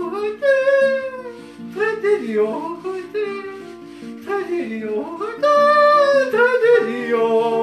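A man yodeling to his own acoustic guitar accompaniment, the voice leaping up and down in pitch in a comic yodel refrain.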